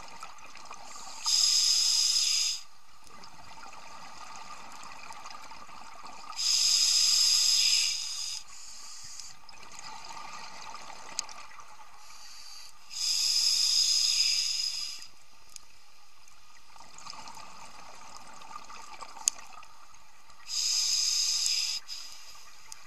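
Scuba diver breathing through a regulator underwater: four loud hissing breaths, each one to two seconds long and about six seconds apart, with a fainter rushing, watery sound between them.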